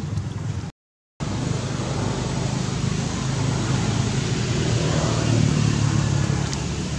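Steady vehicle noise with a low hum, starting after a brief cut-out of the sound about a second in.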